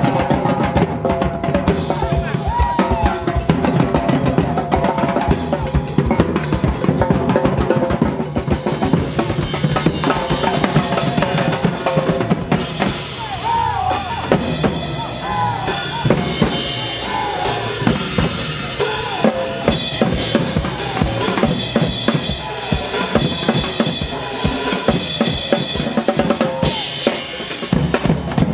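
Percussion ensemble drumming: large shoulder-slung bass drums beaten with sticks together with smaller hand-held drums, playing a loud, continuous driving rhythm.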